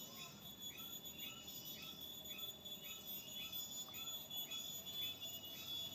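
Faint, evenly repeated chirping calls, about two a second, each a short rise and fall, over a steady high-pitched insect whine: the strange sound heard on the mountain, which a listener likens to a mareme.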